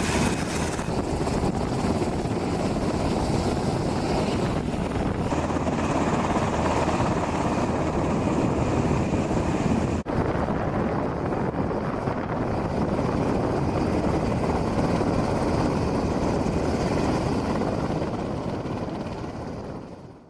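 HH-60W Jolly Green II helicopter running on the ground, its twin turboshaft engines and turning rotor making a steady, dense noise. The sound drops out for an instant about halfway through, carries on, and fades out at the end.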